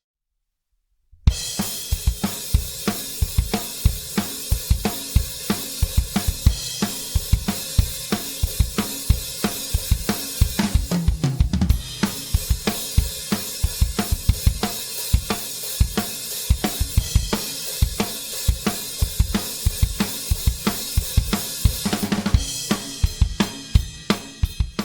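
Sonor Prolite drum kit played in a steady groove: kick drum, snare and Paiste 2002 cymbals. It starts after about a second of silence. About eleven seconds in comes a fill of lower drum hits falling in pitch.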